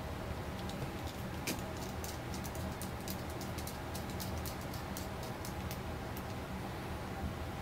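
Quick, irregular light clicks and taps of small parts being handled on a carbon-fibre quadcopter frame, mostly in the middle of the stretch, over a steady low hum.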